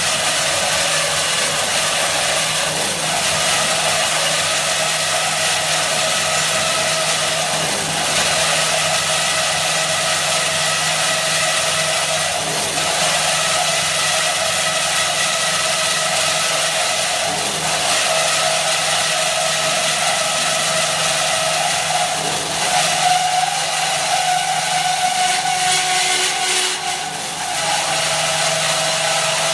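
IMET KS-1202 NC double-mitre band saw running: a steady machine hum with a higher tone held over it, which shifts briefly and dips near the end.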